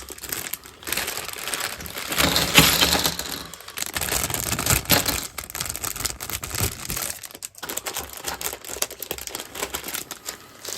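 Crinkling of a thin plastic Lego parts bag being opened and handled, with small plastic Lego pieces clicking and rattling against each other.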